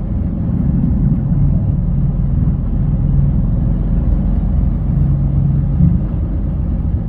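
Lorry's diesel engine and rolling noise heard from inside the cab as it moves slowly: a steady low rumble with a droning hum that fades in and out.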